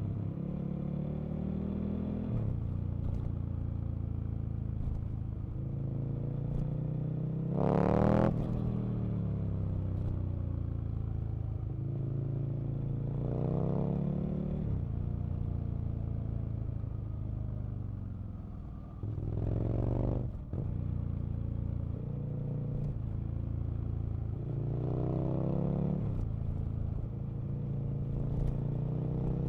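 Aprilia RSV Mille's V-twin engine on the move, running steadily with four spells where the revs climb under acceleration and then drop back. The loudest climb comes about eight seconds in, and there is a brief dip and sharp rise in revs near twenty seconds.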